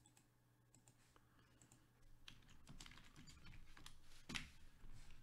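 Faint typing on a computer keyboard with scattered clicks, sparse at first and busier from about two seconds in.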